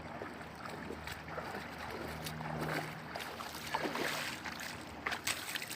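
Steady rush of river water with wind on the microphone, faint voices in the middle and a few sharp clicks near the end.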